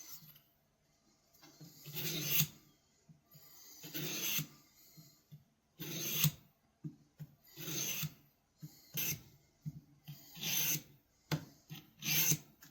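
Steel pocket-knife blade drawn across an abrasive sharpener in slow, separate rasping strokes, about seven of them, one every one to two seconds.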